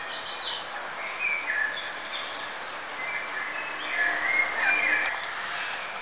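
Several songbirds chirping and singing short whistled phrases and trills, clustered just after the start and again a second or so before the end, over a steady background hiss.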